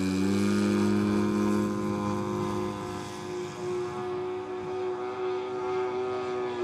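Twin propeller engines of a giant-scale radio-controlled Grumman S-2 Tracker model flying overhead, a steady droning whose pitch levels off about half a second in. It is a little quieter from about three seconds in.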